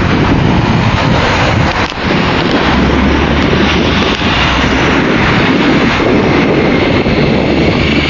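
Hot air balloon's propane burner firing in a long burn, a loud, steady rushing noise.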